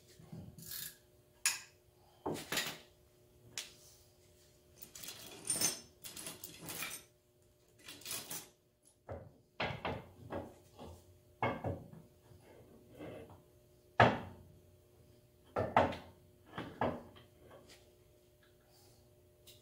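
Irregular metallic clinks and knocks of hand tools and steel parts being handled on a John Deere 4720 compact tractor's front axle at the wheel spindle, a dozen or so short sharp hits with brief ringing, over a faint steady hum.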